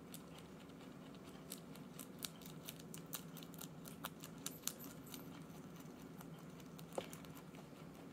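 Flemish giant rabbit chewing leafy greens: quick, crisp crunching clicks, thickest in the middle, with one sharper click near the end, over a steady low hum.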